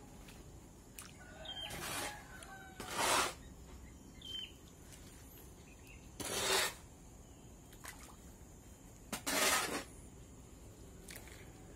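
A hoe scraping and dragging through a heap of wet sand and cement as plaster mortar is mixed by hand, four strokes a few seconds apart. A bird chirps twice in between.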